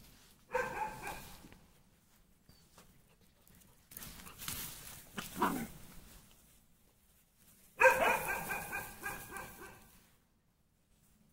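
Puppies yapping as they play: a short run of high-pitched yaps about half a second in, a brief yelp around five seconds in, and a longer, louder run of yaps about eight seconds in.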